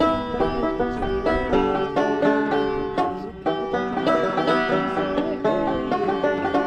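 Background music: an upbeat bluegrass-style tune led by quickly plucked banjo notes.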